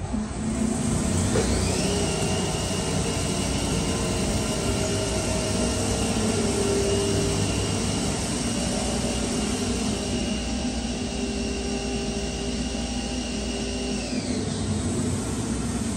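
An electric motor's high whine climbs over about a second, runs steady for roughly twelve seconds, then winds down near the end, over a steady mechanical hum.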